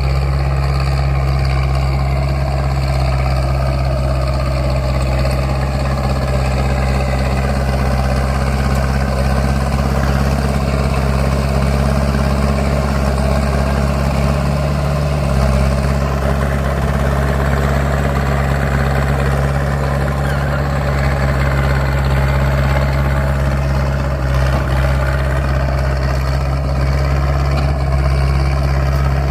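Caterpillar D3C crawler bulldozer's diesel engine running steadily at a constant low drone, with small shifts in the higher mechanical noise but no clear rev changes.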